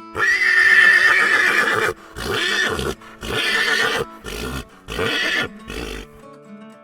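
Horse stallion whinnying: one long, high call followed by a run of shorter pulses that grow weaker and die away about six seconds in.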